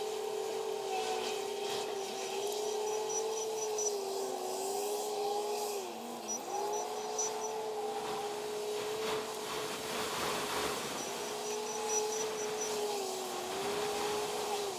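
Heavy diesel machinery running with a steady mechanical whine that dips in pitch twice and recovers, under wind noise. A faint high-pitched beeping comes and goes three times.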